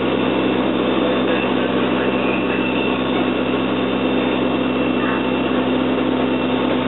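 A vehicle engine idling steadily: an even, unchanging drone with a constant low hum.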